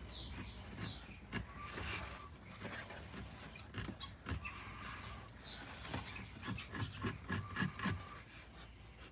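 Drawing strokes scratching across a wooden surface, with a quick run of short strokes about two-thirds of the way through.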